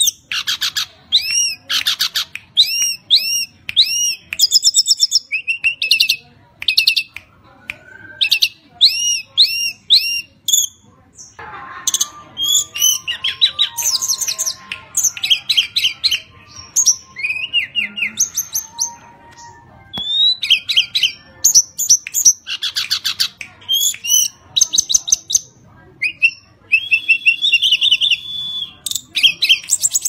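Tledekan gunung singing in full voice: phrases of clear, high whistled notes, often runs of three or four quick upward-hooked notes, separated by short pauses.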